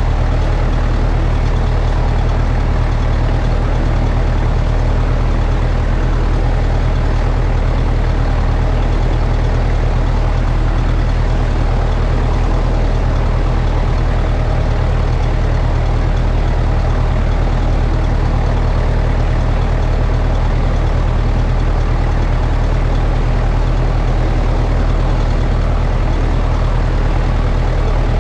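1958 Massey Ferguson 35 tractor engine running steadily under load as it pulls a plough, heard from underneath the tractor.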